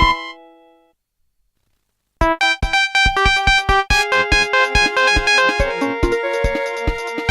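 Synthesized mobile phone ringtones from a Fly SX240, played on a Nokia 220. One keyboard-like melody with a beat fades out within the first second. After about a second of silence, a new synth ringtone starts with a steady beat and a melody.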